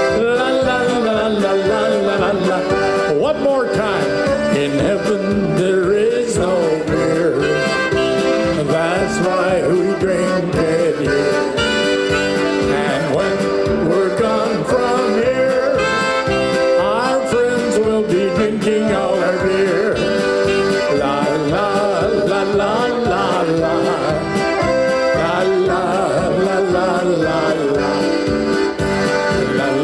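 Live polka music: accordion playing the melody over keyboard backing, with a steady beat.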